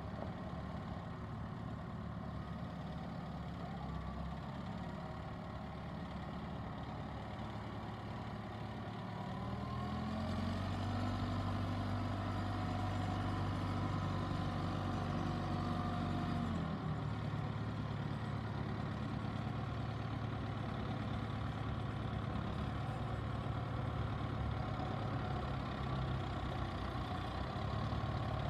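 John Deere 6330 tractor's diesel engine running at low revs. About ten seconds in it revs up and gets louder, holds there for about six seconds, then eases back to a slightly lower steady speed.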